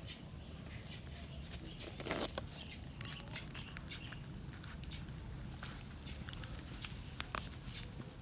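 Puppies eating and jostling at their food: scattered small clicks and taps, with a louder brief rustling scuffle about two seconds in.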